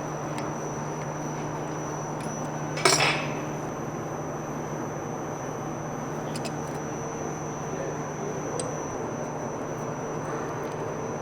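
Metal tools and pump parts being handled on a workbench: one loud metallic clank about three seconds in, then a few faint clicks, over a steady hum.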